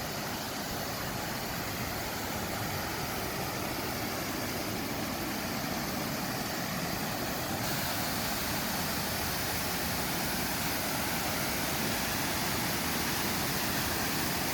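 Waterfall on a brook rushing: a steady, even rush of falling water that grows slowly louder and turns brighter about halfway through.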